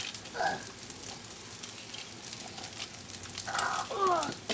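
Steady rain pattering, with two short high voice sounds, the second near the end sliding down in pitch.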